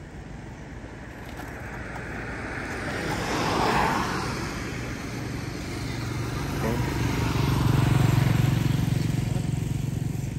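Motor vehicles going by: one passes with a rising and falling rush about four seconds in, then a lower engine rumble builds to its loudest near eight seconds and eases off.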